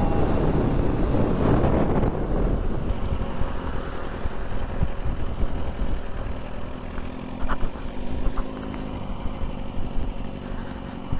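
Sport motorcycle riding slowly over a dirt lot. A heavy wind rumble on the microphone fills the first couple of seconds, then eases, leaving the engine running quietly at low revs.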